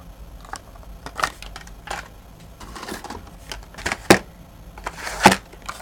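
Handling clicks and taps of blister-carded Hot Wheels die-cast cars being taken from a storage case, a string of light clicks with two sharper clacks near the end.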